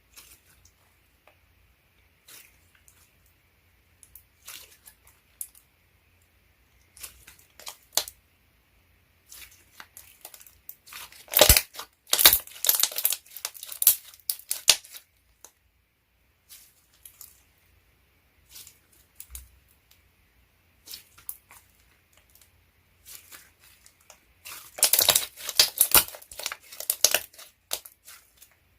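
Slime being played with by hand: scattered soft clicks and pops, then two bursts of dense crackling and tearing sounds, one about ten seconds in and one near the end.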